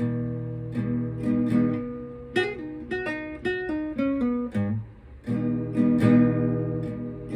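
Acoustic guitar with a capo, strummed chords that give way to a short run of single picked notes in the middle, a brief dip about five seconds in, then strumming again.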